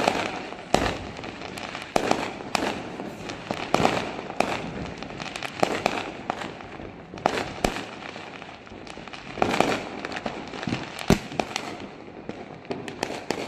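Firecrackers and aerial fireworks going off all around: many sharp bangs at irregular intervals, some loud and some faint.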